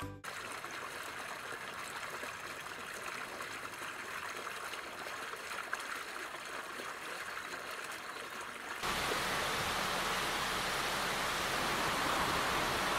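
Running water: a small fountain jet splashing into a pond, then, about nine seconds in, the louder rush of river water pouring over a weir.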